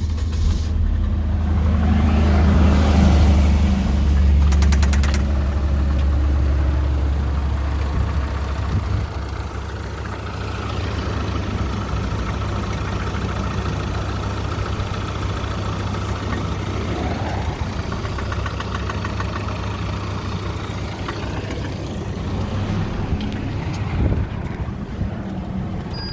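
Chevrolet Vectra's engine running after a restart, louder in the first few seconds and then settling to a steady run. It carries the abnormal engine noise that appeared after a power loss and overheating, which the owner suspects is a loss of timing sync.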